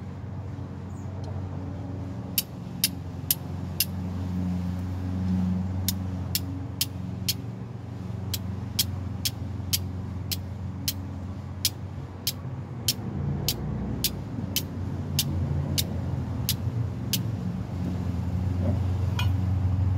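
Flint struck against a steel striker over a tin of char cloth: sharp clicks, about two a second in runs, starting a couple of seconds in and stopping near the end. A low steady engine drone runs underneath.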